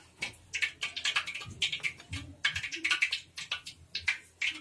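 Hands pulling leftover dough scraps away from cut-out shapes on a wooden chopping board: a quick, irregular run of small taps and scrapes.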